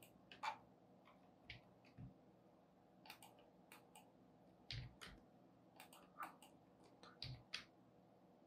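Faint, scattered clicks of a computer keyboard and mouse, a dozen or so irregular taps, some with a soft low thump.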